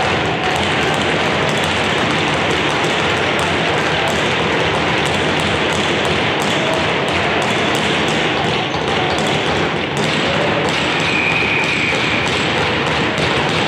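Steady din of a sports game in progress, with many light taps and thuds through it and a brief high tone about eleven seconds in.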